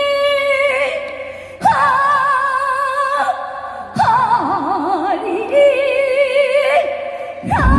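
A female Korean trot singer singing unaccompanied: three long phrases of held notes with a wide vibrato. Near the end the band comes in underneath.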